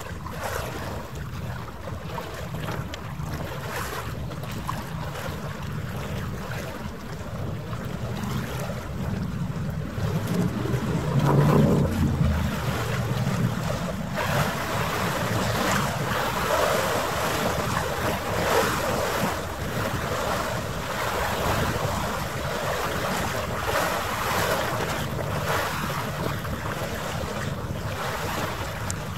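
Wind buffeting the microphone over harbour water, a steady noisy rumble with no clear tones, played back fast-forwarded. One louder low surge comes about a third of the way in, and the hiss grows brighter after the halfway point.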